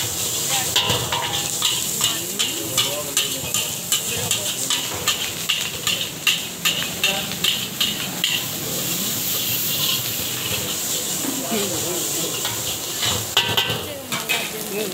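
Long metal ladle scraping and clanking against a large iron wok as rice is stir-fried, over a steady sizzle. The knocks and scrapes come in quick irregular runs, thin out in the middle, and pick up again near the end.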